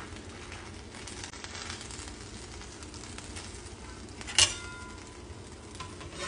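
Quesadilla frying in an oiled pan with a low, steady sizzle. One sharp clink of a utensil a little over four seconds in, ringing briefly.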